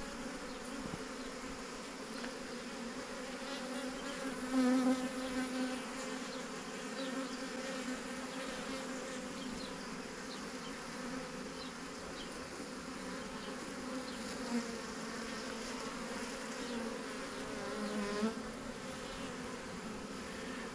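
Swarm of honeybees buzzing steadily around the hive box as they settle into it. The buzz swells louder with a wavering pitch briefly at about four and a half seconds, and again at about eighteen seconds.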